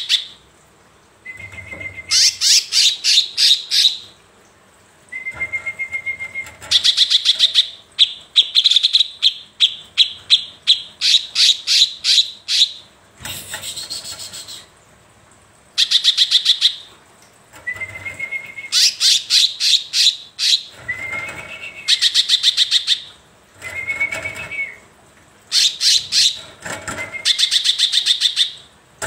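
A caged cucak kinoi leafbird singing loudly in full song. It gives repeated phrases of rapid, ringing notes, about eight to ten a second, and many of the phrases open with a short lower whistle. Brief pauses separate the phrases.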